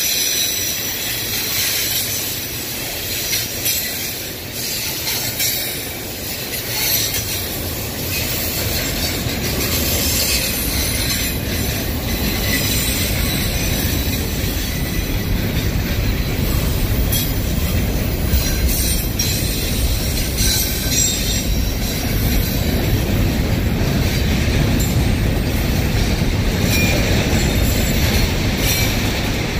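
Double-stack intermodal freight train rolling past: a steady rumble of steel wheels on the rails with wheel squeal and scattered clicks over the rail joints. It grows louder and steadier about eight seconds in.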